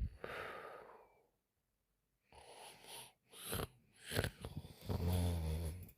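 A sleeping woman breathing noisily: one breath at the start, then a few short breaths, and near the end a low, buzzing snore lasting about a second.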